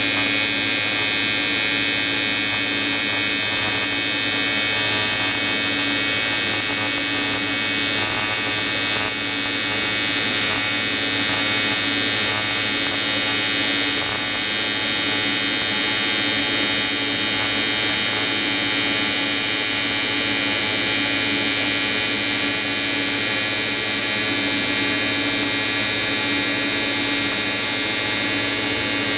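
Everlast 325EXT AC TIG welder buzzing steadily as its square-wave arc runs a continuous bead on an aluminium intercooler.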